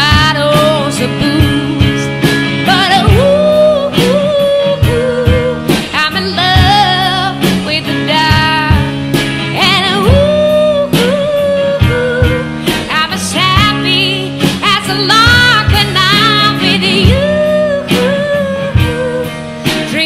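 Live band music: a woman sings with strong vibrato, holding long notes, over electric guitar.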